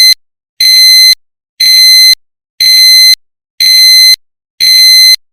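Honda seatbelt reminder chime: a loud, high-pitched electronic beep repeating about once a second, each beep about half a second long. It is the warning that the seatbelt is unfastened while the car is running. After five beeps it stops near the end.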